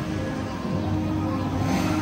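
Eerie background music with a steady low hum beneath it and a brief hiss near the end.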